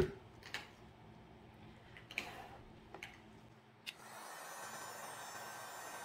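Handheld electric heat gun picked up with a few knocks and clicks, the loudest a thump at the very start, then switched on with a click about four seconds in and running with a steady hiss of blowing air.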